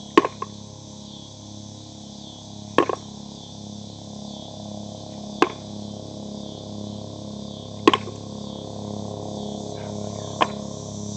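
Five tossed metal washers landing sharply at the wooden target box, one about every two and a half seconds, over the low pulsing drone of a low-flying helicopter that grows louder and a constant buzz of cicadas.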